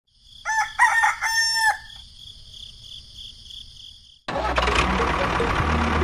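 A rooster crows once, one long call. About four seconds in, a steady motor running sound cuts in abruptly: the miniature toy tractor running.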